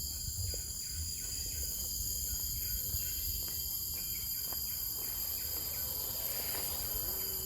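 Steady high-pitched chorus of forest insects, several constant tones layered together, over a low rumble.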